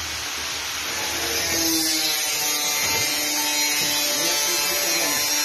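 A handheld power drill running steadily as the hole is drilled into the wall.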